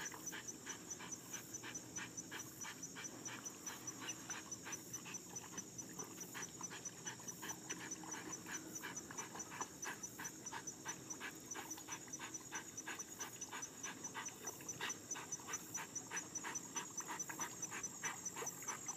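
A dog panting rapidly and steadily, about three breaths a second, over a steady high-pitched pulsing tone.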